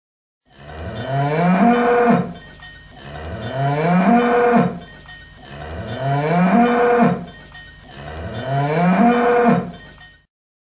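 Cattle mooing: four long moos about two and a half seconds apart, each rising in pitch and then dropping away.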